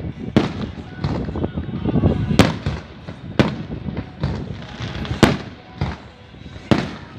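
About six sharp clicks or pops at irregular intervals, roughly one to two seconds apart, over the murmur of a crowd.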